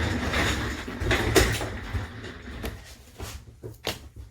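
Handling noise close to the microphone: rustling and scraping of things being moved on the workbench, with a few sharp clicks and knocks.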